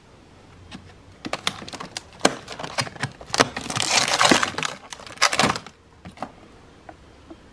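Hands rummaging in a packed freezer: plastic ice cream tubs and frozen packages clicking and knocking against each other and the shelves, with a crinkly rustle of plastic wrapping at its densest about four seconds in.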